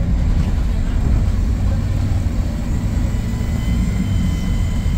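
Scania K230UB single-deck bus under way, heard from on board: a steady low rumble from its five-cylinder diesel engine and the road. A faint high whine comes in about three seconds in.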